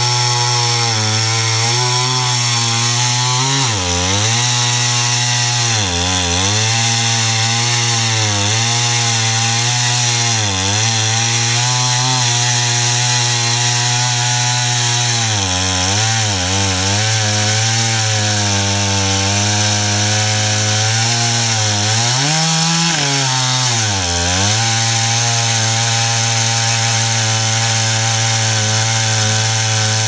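Husqvarna 395XP two-stroke chainsaw with a four-foot bar on an Alaskan chainsaw mill, running at full throttle while ripping a slab lengthwise through a log. The engine note holds high and steady but sags briefly every few seconds under the load of the cut, with longer dips about fifteen and twenty-three seconds in.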